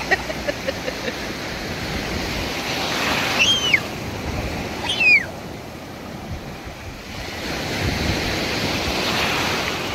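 Ocean surf breaking and washing around a wader, swelling about three seconds in and again near the end. Two short high cries cut through the wash a little over a second apart.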